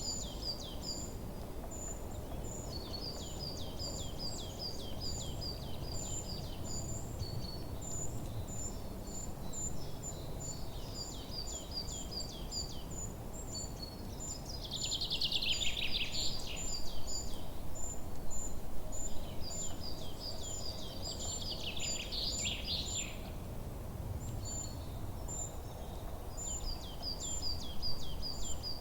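Songbirds singing in a forest: strings of short, high, quickly repeated chirps throughout, with two louder, fast trills that fall in pitch, one about halfway through and one a few seconds later, over a steady low background rumble.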